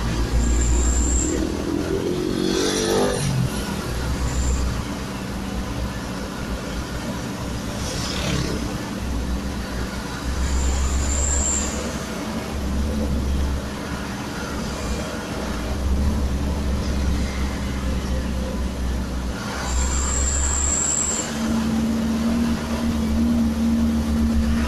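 Engine and road noise heard inside the cab of a moving truck: a steady low drone that swells and fades, with the engine pitch rising briefly about two to three seconds in. Three short high-pitched hisses of about a second each come near the start, about eleven seconds in and about twenty seconds in.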